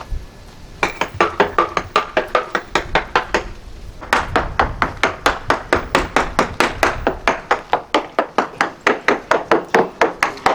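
A mallet tapping rapidly over a Lagoon 420 catamaran's fiberglass hull, about five light strikes a second, in two runs with a short pause a little over three seconds in. This is hull sounding: a solid spot gives a dull knock, and a delaminated or hollow spot rings like the top of a snare drum.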